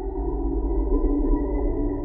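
Spooky ambient drone music: sustained, slowly shifting tones over a steady deep rumble.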